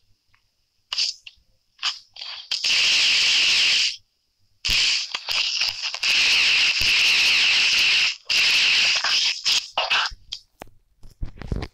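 Loud, scratchy rustling and scraping noise in bursts, some about a second long and others short, with brief gaps between them: the phone being handled, with fingers and surfaces rubbing over its microphone.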